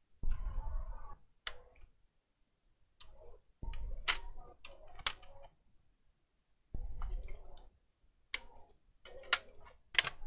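Sharp clicks and light knocks of laptop parts being handled during disassembly, in a few short bursts with pauses between.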